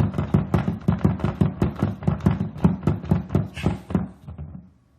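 A fast, even run of knocks, about five a second, that dies away and stops just before the end.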